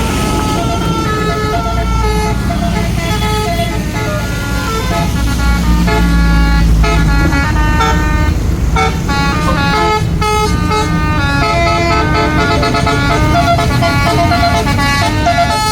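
Tour bus basuri telolet horn playing a melody of quick, changing notes over the low rumble of the bus engine running.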